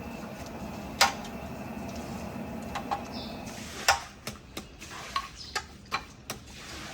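Sharp clinks and knocks of metal serving utensils against pots and dishes: one loud knock about a second in, then a quick, irregular run of clicks in the second half, over a steady low hum.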